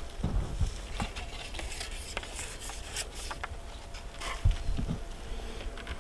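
Handling noise from a fishing rod and reel: scattered light clicks and rubbing over a low rumble.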